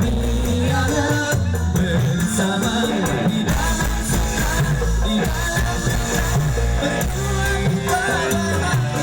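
Dangdut koplo band playing live: a heavy bass line under a wavering melody line.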